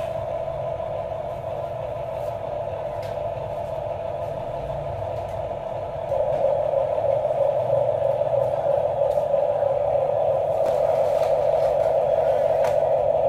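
Small electric motors and plastic gearboxes of toy RC construction vehicles whining steadily, with a few faint clicks. The whine gets louder about halfway through, as a motor takes more load or a second one joins in.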